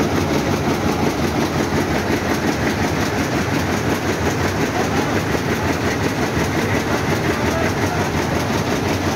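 Hantscho heat-set web offset printing press running at production speed, with its folder delivering printed sections onto the conveyor. A loud, steady mechanical running noise with a fast, even pulse.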